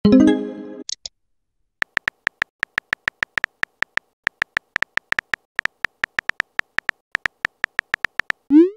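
Texting-app sound effects: a short synthesized pop-up tone at the start, then a run of keyboard typing clicks at about four a second as a message is typed, and a quick rising swoop near the end as it is sent.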